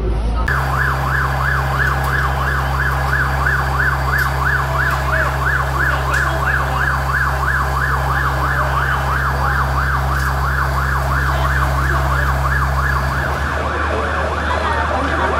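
Emergency vehicle siren in a fast yelp, rising and falling about four times a second, over a steady low engine hum. Near the end it gives way to a different, wavering siren sound.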